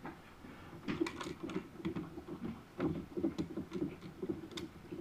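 Small plastic Lego pieces clicking and rattling as a hand fishes them out of the top of a Lego lighthouse model, in two flurries, about a second in and again about three seconds in.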